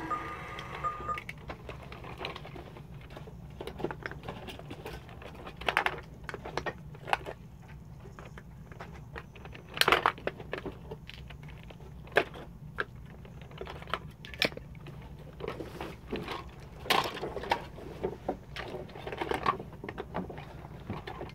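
Irregular clicks, knocks and rustles of hard plastic toy robots and cardboard packaging being handled, over a steady low hum.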